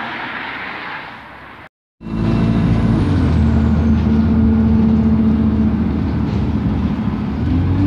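Outdoor hiss for the first couple of seconds, then after a cut the loud, steady drone of a vehicle's engine heard from inside as it travels, with a deep hum under a steady mid-pitched tone.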